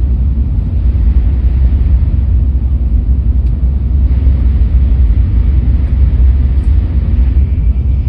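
Steady low rumble of an N700S Shinkansen train running, as heard inside the passenger cabin.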